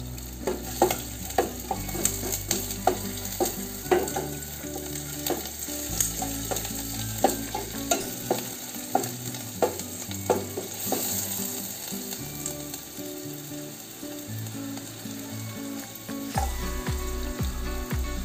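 Chopped onion sizzling in hot oil in a stainless steel pot, stirred with a wooden spatula that knocks against the pot again and again.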